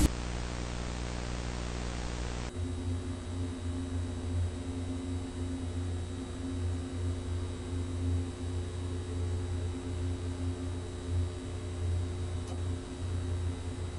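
Steady low droning hum with a faint high-pitched whine over it. About two and a half seconds in, it changes to a heavier, wavering low hum. There is a single faint click near the end.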